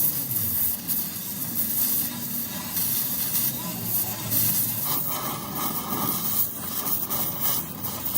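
Loud hissing that swells and fades in repeated gusts, with voices murmuring underneath.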